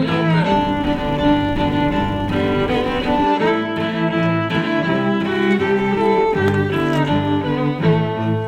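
Background music: bowed strings, violin and cello, playing a steady flowing melody.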